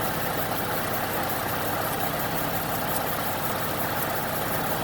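Ford 3.5 L EcoBoost twin-turbo V6 idling steadily, heard from under the hood.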